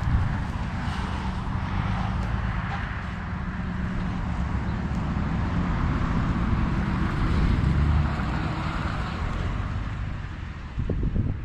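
Pickup truck engine running at low speed while towing a loaded trailer, steady throughout, with a brief dip in level near the end.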